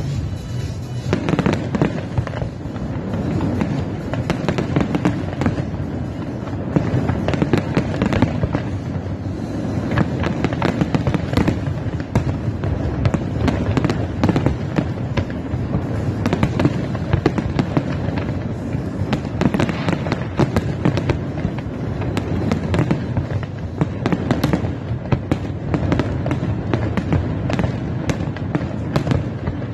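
Fireworks display: a continuous barrage of sharp bangs and crackling over a steady low rumble.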